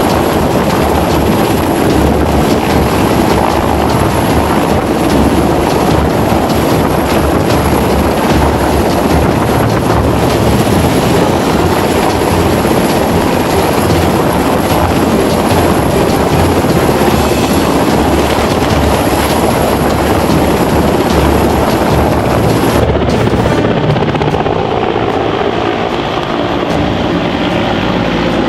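Mil Mi-17 twin-turbine military helicopter hovering overhead, its main rotor and turbines making a loud, steady throbbing roar. Near the end the high hiss cuts off abruptly and the sound becomes slightly quieter.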